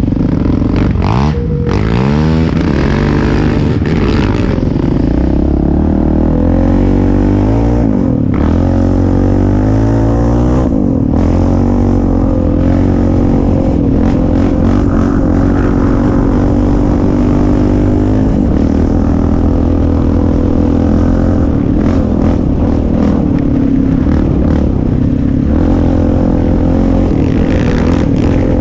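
Sport ATV engine running at speed on a dirt trail, heard from the handlebars. It revs up and drops back several times in the first ten seconds or so, like gear shifts, then holds a steady pitch.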